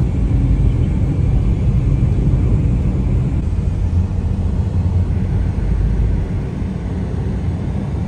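Steady low rumble of a car driving at speed, heard from inside the cabin: tyre and engine noise.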